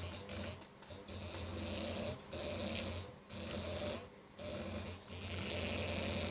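Two-phase bipolar stepper motor driven in full-step mode at 500 mA winding current, buzzing and humming in uneven runs with short breaks between them.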